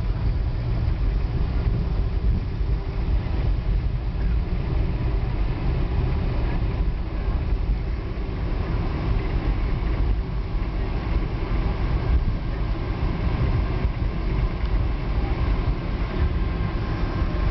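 Steady low rumble inside the cabin of a Boeing 747 rolling on the ground after landing, with a few faint steady tones above it.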